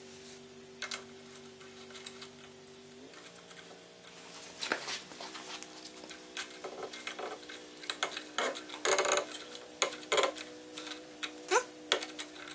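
Brass load-block fitting being handled and screwed into a propane/natural-gas fuel regulator by hand: scattered metal clicks and clinks, sparse at first and much busier from about five seconds in. A steady low hum runs underneath and shifts pitch about three seconds in.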